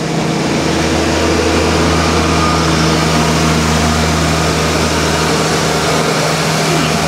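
Parking lot tram tow tractor engine running steadily as it pulls a train of open tram cars past close by. The low hum swells about half a second in and eases off near the end.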